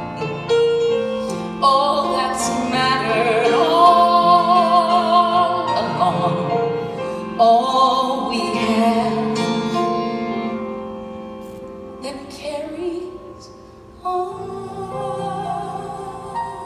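Female vocalist singing long held notes with vibrato, accompanied by grand piano in a live ballad performance. The singing softens after the midpoint, and a fresh piano chord comes in near the end.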